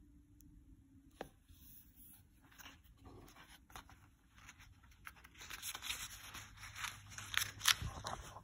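Paper pages of a book being handled and turned: a few light clicks, then from about five seconds in a stretch of crinkly rustling and crackling with a sharp snap near the end.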